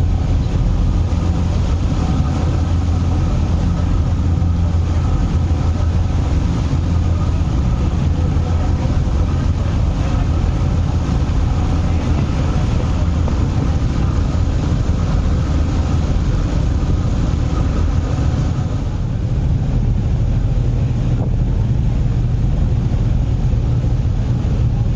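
A ferry's diesel engine droning steadily under way, heard on the open deck over wind on the microphone and the rush of the wake; the engine's higher tones fade a little about three-quarters of the way through.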